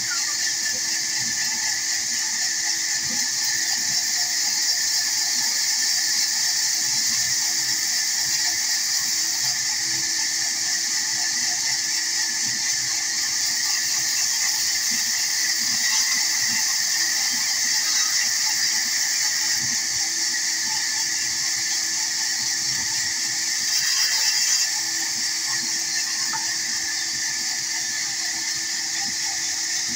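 Large vertical band saw running, its blade ripping wooden planks fed along the table: a steady high hiss over a constant low hum.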